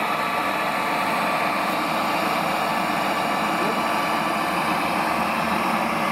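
Water pump of a radio-controlled model fire truck running steadily as its two roof monitors spray high jets of water, a continuous even mechanical hum and rush with a faint steady whine.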